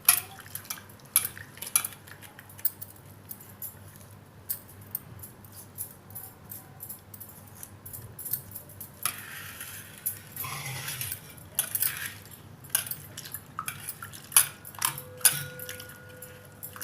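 Repeated light clinks and knocks of metal kitchen vessels while fenugreek leaves are washed in a bowl of water, with a short rush of water about nine seconds in and a brief ringing tone near the end.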